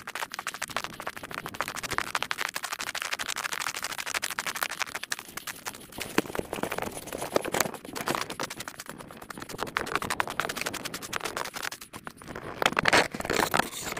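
Field sound from a trail recording played back eight times fast: a dense, rapid crackling and scratching, a little louder for a second or so near the end.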